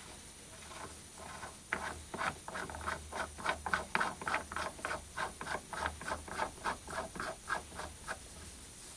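Threaded steel shaft being screwed by hand into the freshly cut 25 mm × 2 mm pitch thread of a cast-iron backplate: a run of short metallic scrapes, about four a second, starting a couple of seconds in and stopping shortly before the end.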